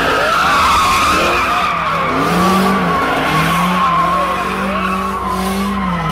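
Car tyres squealing in a long, continuous screech as cars spin donuts. Under the squeal, engines rev up and down.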